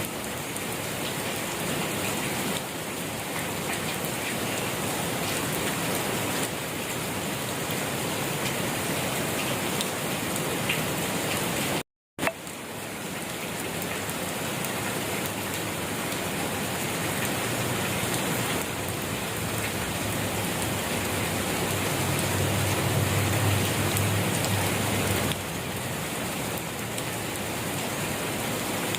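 Steady rain falling on surfaces, an even hiss of many drops. About halfway through the sound cuts out completely for a fraction of a second, and a faint low rumble sits under the rain in the latter part.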